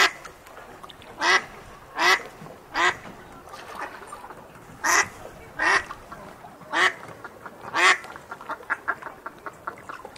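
A duck quacking: eight loud quacks at uneven gaps of about a second, then a faster run of short, quieter calls near the end.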